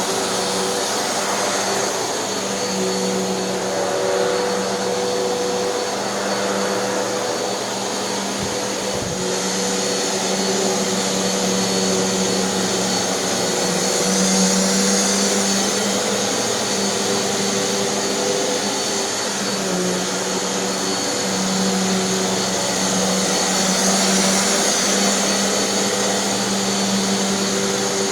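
Hoover NanoLite upright vacuum cleaner running steadily, its motor humming over a wide rush of airflow, with slight shifts in pitch now and then. Its brushroll is turning on an idler pulley fixed with low-temperature hot glue.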